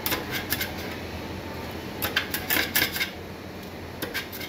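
Metal scraper scraping and clinking on a stainless-steel ice-cream cold plate as it pushes under a frozen sheet of ice cream to roll it up. The scraping comes in three spells: at the start, around the middle and near the end.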